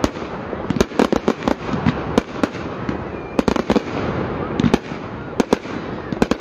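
Fireworks display: aerial shells bursting, a rapid, irregular string of sharp bangs over continuous crackling.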